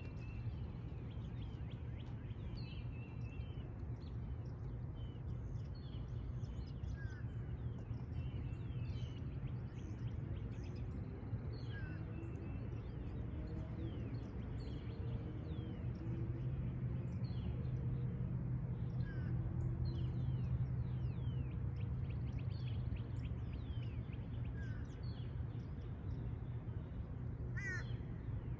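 Outdoor ambience of many birds chirping and calling, short scattered calls all through, with a louder harsh call near the end. Under it runs a steady low rumble that grows louder a little past the middle.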